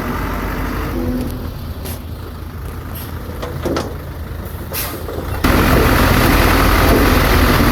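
Heavy diesel earthmoving machinery running: a steady low engine rumble with a few short sharp noises in the middle. The engine sound jumps abruptly louder about five seconds in.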